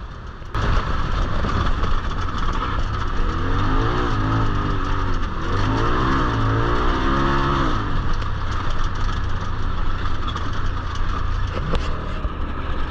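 Turbocharged Polaris RZR side-by-side running hard off-road, with a constant rush of wind and ground noise. Its engine revs climb and drop twice in the middle.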